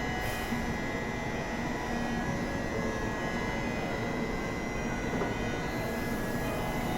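Shinkansen train at the platform as its doors close: a steady high electronic tone held throughout, over the train's running noise.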